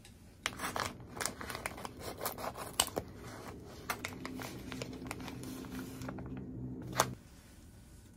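Plastic packaging of imitation crab sticks (kanikama) being handled and torn open by hand: irregular crinkling and crackling, with a sharper snap near the end.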